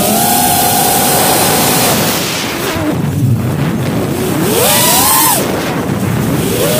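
Brushless motors and propellers of a 5-inch FPV quadcopter whining with the throttle: the pitch holds steady for about two seconds, falls away as the throttle drops, then sweeps up sharply about five seconds in and falls again, over a rush of wind.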